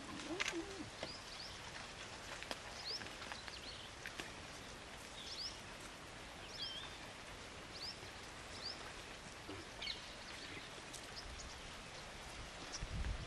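Outdoor forest ambience: short, high rising bird chirps every second or so over a steady hiss, with a few faint clicks. A brief low wavering call right at the start, and a low rumble sets in near the end.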